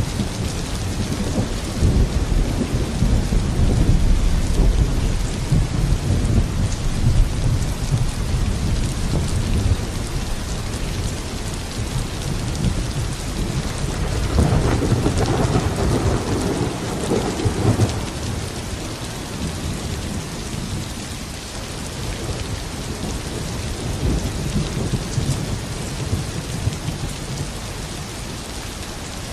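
Steady rain with rolling thunder: a long low rumble through the first several seconds and another about halfway through, then the rain alone.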